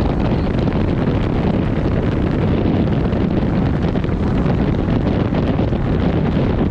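Steady wind rushing over the camera microphone during a tandem parachute descent under an open canopy.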